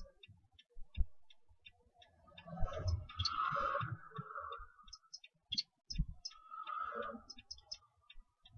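Faint, irregular clicking and ticking, with a few soft low thumps.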